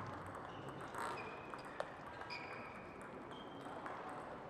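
Table tennis balls clicking on tables and bats: scattered light knocks, a sharper one about two seconds in, and a few brief high squeaks.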